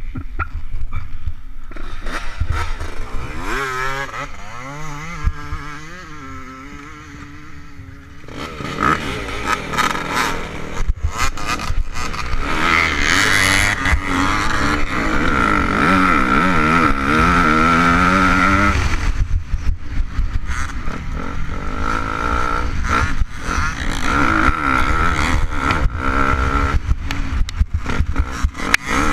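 KTM 250 SX-F four-stroke single-cylinder motocross engine. It runs low and unsteady for the first several seconds, then from about eight seconds in revs hard, its pitch rising and falling through the gears as the bike gets back up to race speed.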